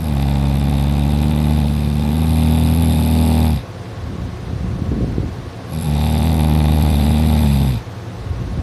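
Loud snoring that sounds like a tractor: two long snores, each about three seconds, with a low droning pitch, separated by a quieter breath.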